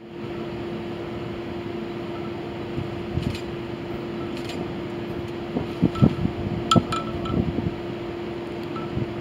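Steady mechanical hum with one constant droning tone, broken by a few irregular knocks and clicks around six to seven and a half seconds in.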